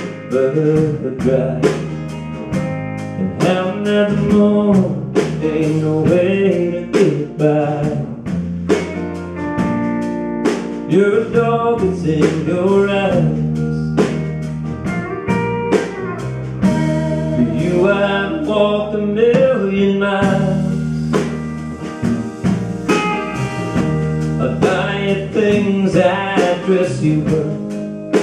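Live blues-country band playing an instrumental break: electric guitars, acoustic guitar, bass and drums, with a lead line of bending notes over a steady beat.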